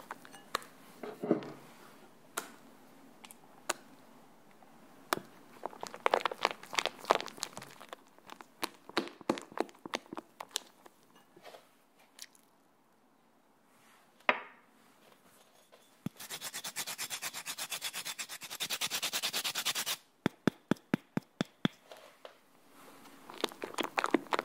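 A silicone spatula folding cream in a glass mixing bowl: soft rubbing and scraping against the glass with sharp taps. About two-thirds of the way through comes a few seconds of rapid, even scraping strokes.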